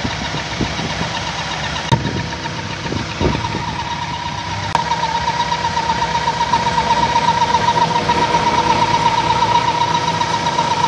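1998 Toyota Corolla engine idling with an extra steady high tone on top of it, which starts to waver in quick pulses from about halfway through, along with a few brief knocks. This noise goes away when the oil filler cap is taken off or the intake vacuum pipe is blocked, which points to crankcase pressure at the PCV valve.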